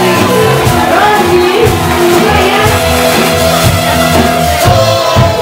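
Live band playing a disco-pop song, with a singer's voice over bass guitar, drums and electric guitar.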